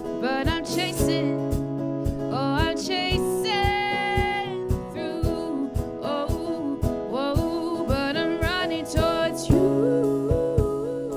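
Acoustic guitar strummed in a steady rhythm under a voice singing a melody, with some notes held and wavering.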